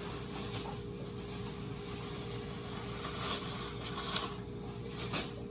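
Food-preparation handling sounds: soft rustles and scrapes about 3, 4 and 5 seconds in, over a steady low hum.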